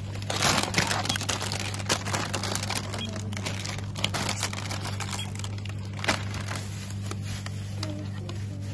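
Crinkling and rustling handling noise, such as plastic packaging, a bag or clothing being handled close by, with many scattered small clicks, over a steady low hum.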